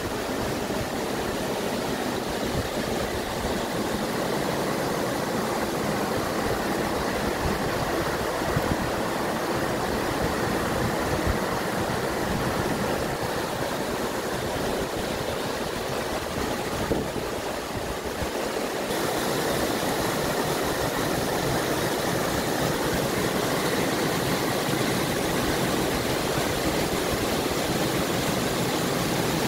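Steady rush of flowing creek water, a little louder about two-thirds of the way through.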